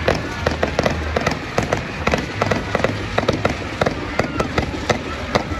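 Fireworks going off in quick succession: an irregular rapid string of sharp bangs and crackles, several a second, from rising crackling-tail shells.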